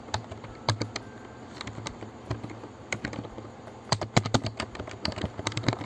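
Typing on a computer keyboard: separate key clicks, few at first, then a quicker run of keystrokes about four seconds in.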